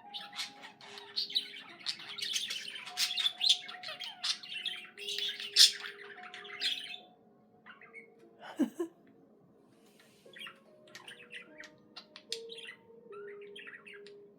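Pet budgerigar chattering and warbling: a dense run of rapid chirps and squawks, then after a pause about seven seconds in, softer scattered chirps.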